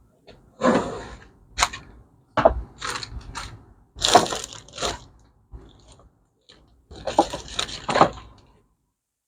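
Hard objects being picked up, shuffled and set down on a workbench: a string of irregular clattering and rustling handling noises with short gaps between them, the kind made while rummaging for supplies.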